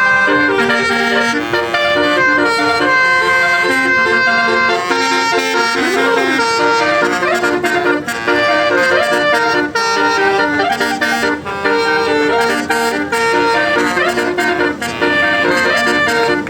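Basuri musical horn on a tour bus playing a continuous melody of reedy, accordion-like stepped notes, with a quick rising and falling pitch glide about six seconds in.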